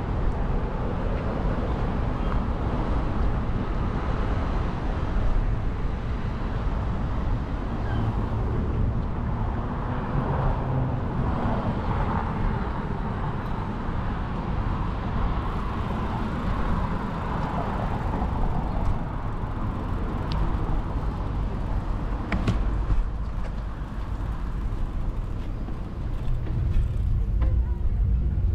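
City street traffic with passing cars, heard from a moving bicycle over a steady low rumble.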